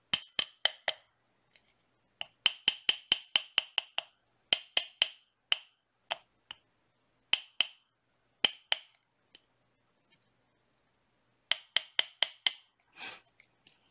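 A small hammer tapping the copper wire shank of a ring on a tapered ring mandrel, in quick runs of several light taps and a few single strokes, each with a short bright ring. The gentle tapping hardens and levels the shank wires. A brief scrape near the end.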